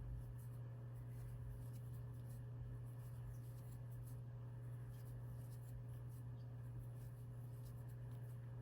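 Faint scratching and light irregular ticks of a crochet hook pulling yarn through single crochet stitches, over a steady low hum.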